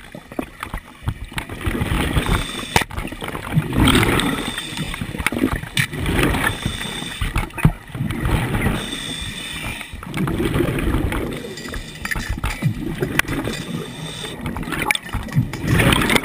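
Underwater sound of a scuba diver breathing through a regulator: exhaled bubbles rush and gurgle past the camera in repeated swells every couple of seconds, with a few sharp clicks in between.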